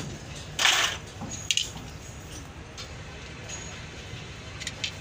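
Hand tools worked against a truck's rear brake drum: a short noisy rush about half a second in, then a couple of light metallic clicks and a few faint ticks.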